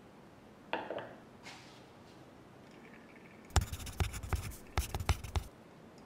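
Pour-over coffee gear being handled: a clink about a second in as the ceramic Origami dripper is set down, then about two seconds of quick, irregular knocks and clicks near the end.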